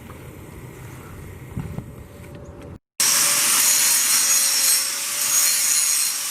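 A power tool running steadily with a loud rasping hiss and a faint steady whine. It starts abruptly about three seconds in, after a quieter stretch of low background noise.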